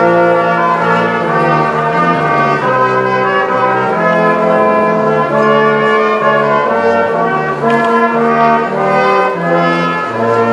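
Brass ensemble playing music in held chords that change about every second.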